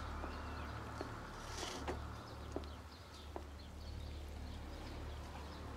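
Outdoor ambience: faint, scattered bird chirps over a low steady hum, with a few soft clicks.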